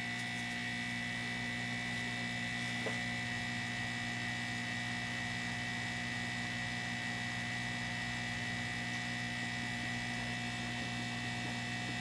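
Heat gun running steadily: a fan motor's even hum with rushing air, as it heats the solder joints of a laptop DC power jack to desolder it.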